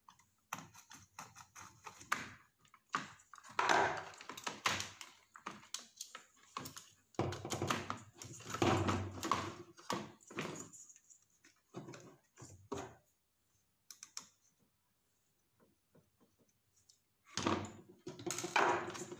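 Clicks, knocks and scrapes of a screwdriver turning out screws and of an induction cooktop's circuit board with its aluminium heatsink being worked loose and lifted from the plastic case, pausing for a few seconds near the end.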